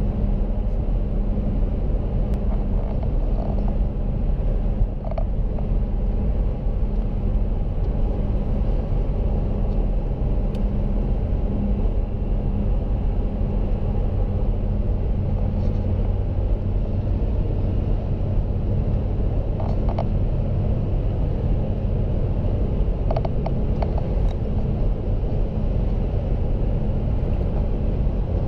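Steady low rumble of a running vehicle, with a constant hum and a few faint clicks.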